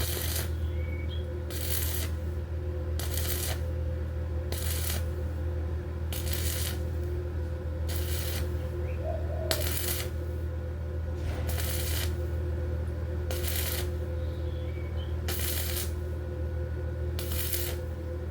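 Electric welder tack-welding the steel frame: short bursts of arc crackle, each about half a second long and coming every second and a half to two seconds, over the welder's steady electrical hum.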